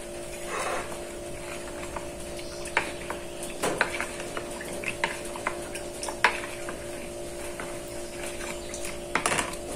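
Metal spoon stirring thin flour batter in a plastic bowl: wet stirring with scattered clicks of the spoon against the bowl, over a steady hum.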